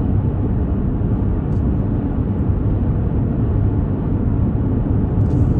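Steady road noise inside a car's cabin while driving: a constant low rumble of tyres and engine with a hiss above it.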